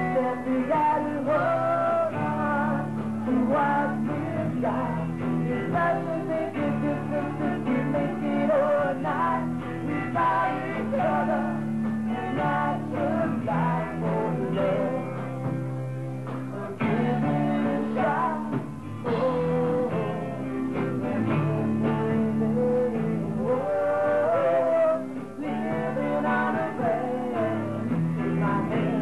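A rock band playing live, with a man singing over acoustic and electric guitars.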